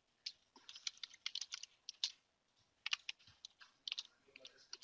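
Computer keyboard being typed on: short, irregular runs of key clicks with brief pauses between them.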